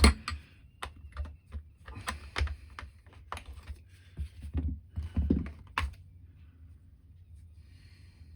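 Irregular sharp clicks and knocks of the Stihl MS200T chainsaw's plastic parts being handled, likely the air filter cover and filter coming off. The loudest knock comes at the very start, and the clicking stops about six seconds in.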